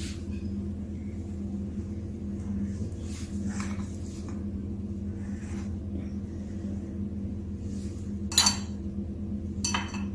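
Glass dish being handled and turned on a counter, with a sharp clink about eight seconds in and a couple more near the end, over a steady low hum.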